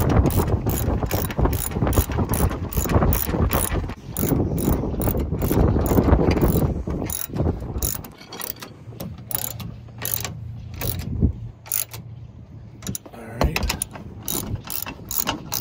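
Hand socket ratchet clicking as it tightens a shock mounting nut: a quick, even run of clicks for the first half, then slower, spread-out clicks.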